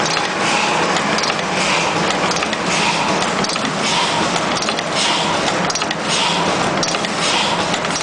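YH-005D automatic terminal crimping machine running, cycling steadily with a repeating hiss-and-click stroke a little faster than once a second as it crimps terminals onto the wire ends.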